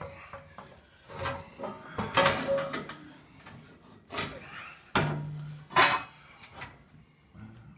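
Metal surround panel being slid and worked into the side slots of a Pacific Energy Super fireplace insert: a series of scrapes and clunks of metal on metal.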